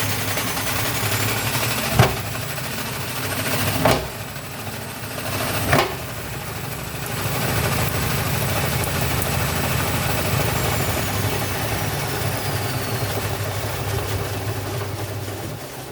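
Vestel washing machine spinning with an unbalanced load: a steady motor hum, broken by three loud knocks about two seconds apart as the drum bangs. The spin then runs on steadily and winds down near the end.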